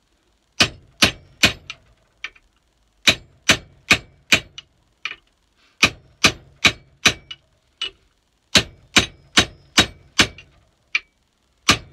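Ball-peen hammer striking a steel drift in runs of three to five ringing metallic blows, with short pauses between runs. The blows are driving the old wooden handle stub out of the eye of a splitting maul head. The stub is held tight by its steel wedges and is only creeping out.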